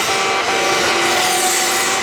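Japanese Kintetsu station level-crossing alarm sounding its buzzing 'bee-bee-bee' warning tone in quick repeats, over the steady rushing noise of a train running through the crossing.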